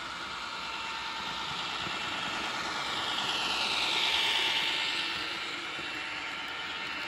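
H0-scale model steel train, hauled by a model CFL G1206 diesel locomotive, running past: a thin, high rolling and motor noise that swells to a peak about four seconds in and then fades, with a slight falling whine as it goes by.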